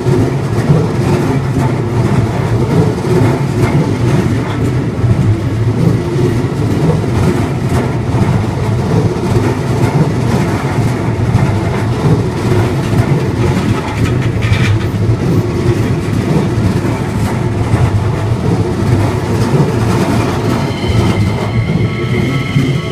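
A Keikyu electric train running past at close range: a loud, steady rumble of wheels on rails with faint rhythmic clacks. Near the end, several steady high tones come in over the rumble.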